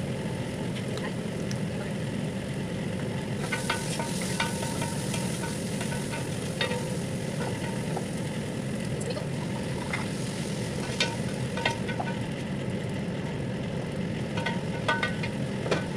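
Wooden spoon stirring food frying in a pot, with a steady sizzle and irregular light knocks of the spoon against the pot from about three seconds in, over a steady low hum.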